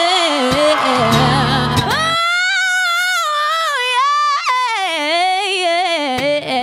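A woman singing a fast, melismatic vocal riff, her voice running quickly up and down in pitch, over strummed acoustic guitar chords that come in about half a second in and again near the end.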